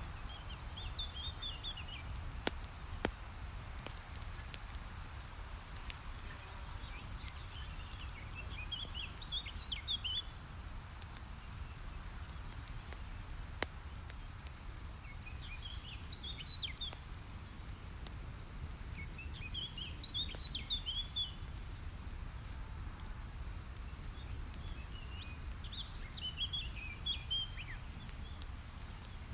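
A campfire crackling with a few sharp pops over a steady low rumble, while a small songbird sings a short twittering phrase every few seconds, five times in all.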